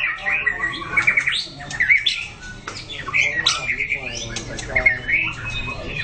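White-rumped shama singing a rapid, varied song of clear whistles, chirps, trills and harsh squawky notes, the phrases following one another with hardly a break.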